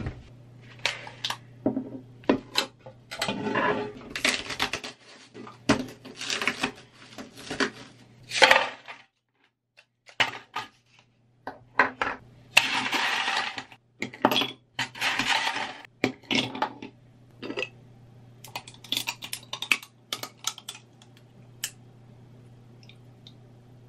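Ice cubes being knocked out of a plastic ice-cube tray and clattering into a plastic container, mixed with a string of clicks and knocks as a mug and packages are set down on the counter. The clatter comes in several short rattling bursts with quieter handling between them.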